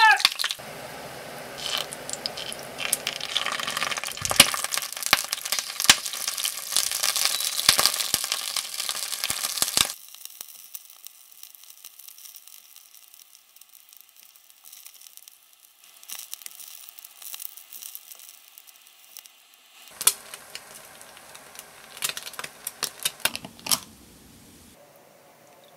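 Sliced garlic frying in oil in a pan: a dense crackling sizzle with many small pops, which stops abruptly about ten seconds in and gives way to a much fainter sizzle of sausages frying. Near the end come a few sharp clinks and taps of a metal scoop on a ceramic plate.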